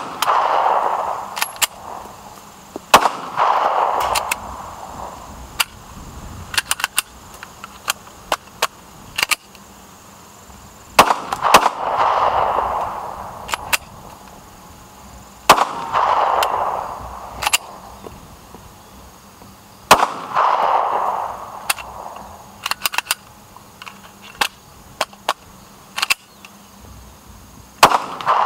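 Gen 4 Glock 26 9mm pistol firing single shots several seconds apart, about six in all, each followed by an echo, with sharp metallic clicks and clacks of the slide being worked between shots. The dirt-worn pistol keeps malfunctioning and is cleared by hand between rounds.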